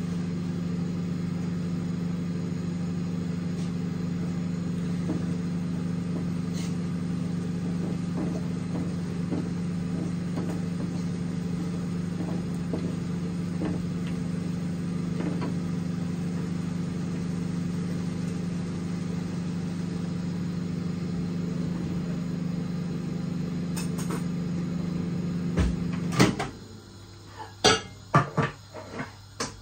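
Steady mechanical hum, like a kitchen fan or motor, that cuts off suddenly near the end. After it stops, a wooden spatula knocks and scrapes against a wok several times.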